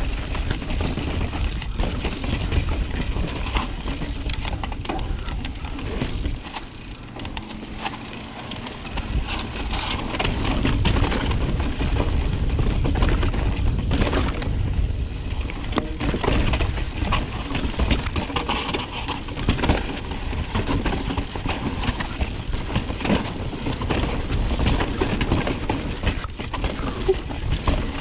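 Full-suspension 29er mountain bike riding down a rocky trail: tyres crunching and the bike clattering over rock, with dense rattles and knocks and low wind rumble on the helmet camera. It eases off for a couple of seconds around seven seconds in, then picks up again.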